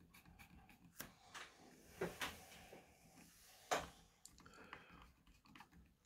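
Faint scattered clicks and ticks of a small magnetic screwdriver turning a screw down into the motherboard's aluminium M.2 cover block, with a few slightly louder clicks.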